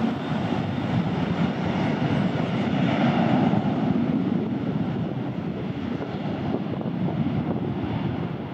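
Air Europa Boeing 737-800's CFM56 turbofan engines running at high thrust as the jet rolls down the runway for takeoff: a steady rumble that swells to its loudest about three seconds in, then eases a little as it moves past.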